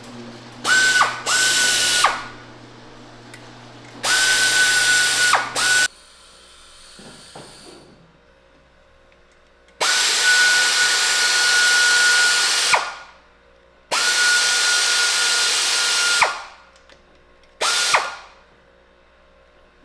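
A small electric power tool, such as a cordless drill or power ratchet, running in repeated bursts with a steady motor whine. There are about seven runs, some under a second and others about three seconds long, and at the end of each the motor winds down and stops.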